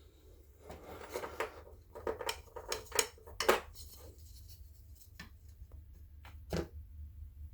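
A hand-held metal ratchet being handled and measured: irregular light metal clinks and taps, several in the first few seconds, then a few scattered ones.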